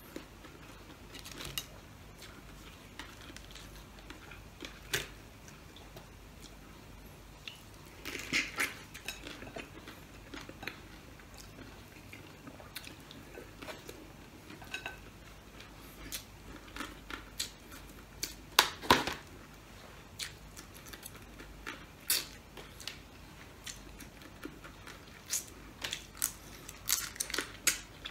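Boiled blue crabs being eaten by hand: scattered cracks and clicks of shell being broken and chewed, with the loudest cracks about two-thirds of the way through and a quick run of clicks near the end.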